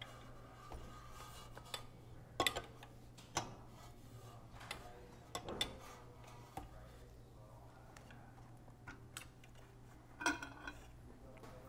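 Faint, scattered metal clicks and taps, a handful in all, as an open-end wrench works the brass nuts on the copper tubing of an espresso machine's boiler, over a low steady hum.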